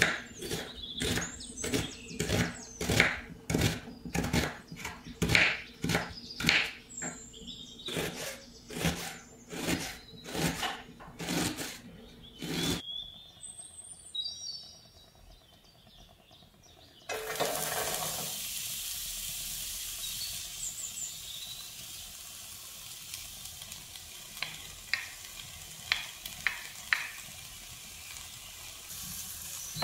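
Kitchen knife chopping red onion on a wooden cutting board, a steady run of chops about two a second. After a short quiet spell, oil sizzles steadily in a frying pan as chopped onion and garlic fry, with a few taps of a wooden spatula near the end.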